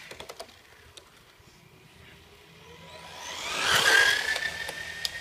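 Brushed electric motor and drivetrain of an RC car running at speed, a whine with tyre noise that swells to a loud peak about four seconds in as the car comes close by, its pitch rising slightly and then holding steady.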